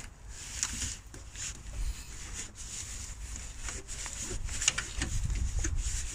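Rubbing and scraping with scattered small clicks as a hand works a rubber coolant hose and its Jubilee clip off the heater valve in a cramped engine bay.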